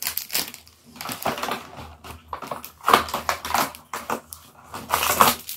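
Cardboard advent calendar doors being pressed and torn open by hand: irregular crackling and small clicks from the card, coming in clusters.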